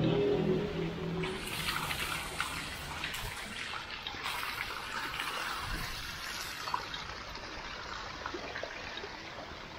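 Water running down a wall fountain and splashing into a pool below, a steady trickle and splash. It grows louder about a second and a half in and slowly fades toward the end.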